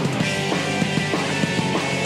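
Rock music with guitar and a busy, steady beat.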